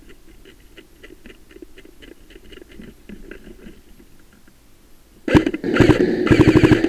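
Faint scattered clicking, then about five seconds in a loud burst of rapid mechanical clacks and rattling from the airsoft AUG, picked up right beside its built-in camera.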